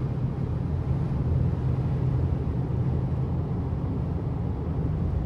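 Car driving down the road, heard from inside the cabin: a steady low rumble of engine and road noise.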